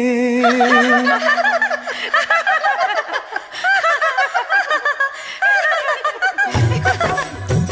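High-pitched giggling and laughter from several children, in many short overlapping bursts. The end of a sung devotional song fades under it at first, and music with a heavy drum beat comes in about six and a half seconds in.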